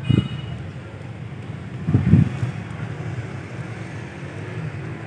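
Steady low rumble with wind buffeting the microphone, broken by dull thumps near the start and about two seconds in.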